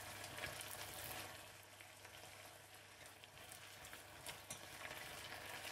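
Gai lan sizzling faintly in a little water and oil in a stainless saucepan as it is turned with chopsticks. A couple of light ticks come about four seconds in.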